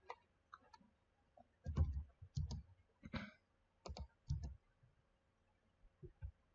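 Computer mouse clicks and keyboard keystrokes, about a dozen short irregular clicks, some with a dull low knock, as AutoCAD commands are entered and objects picked.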